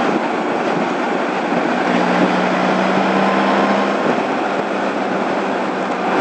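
Honda ST1100 motorcycle cruising at freeway speed: a steady rush of wind and road noise with the engine's drone beneath, its low hum strengthening between about two and four seconds in.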